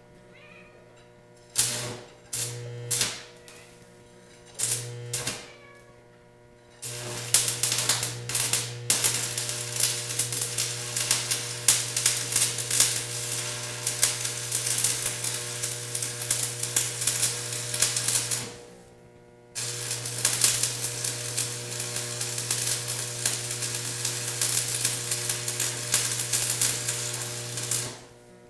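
Arc welding on steel drill pipe. Three short arc strikes in the first few seconds, then two long crackling weld beads of about twelve and eight seconds, split by a brief pause, with the welder's steady hum under the arc.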